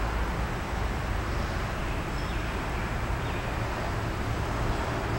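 Steady outdoor background noise: an even, low rush with no distinct events.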